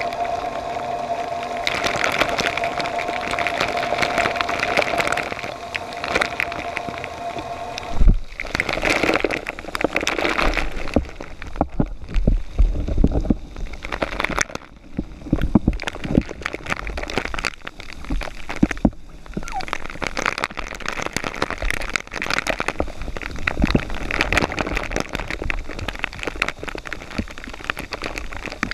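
Freshwater rinse shower spraying down onto a scuba diver's gear and splattering on the camera housing, a dense pattering like heavy rain. A steady tone runs under it for the first several seconds; about eight seconds in there is a sharp knock, after which the water patters and crackles directly on the housing.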